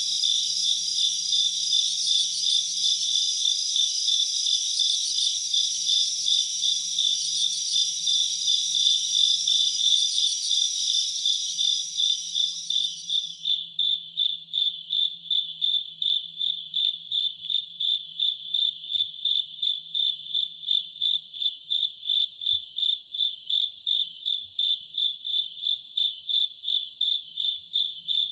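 Insects chirping: a dense, high-pitched chorus that cuts off abruptly about halfway through, leaving a single steady pulsed chirp at about two and a half pulses a second.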